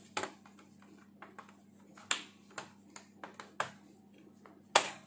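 Scattered plastic clicks and taps as a laptop's bottom cover is handled and fitted back on, with the loudest snap near the end.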